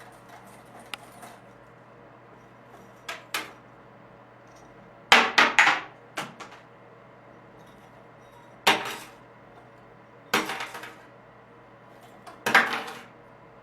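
Sharp knocks and clinks of something hard, some single and some in quick clusters, coming every two seconds or so.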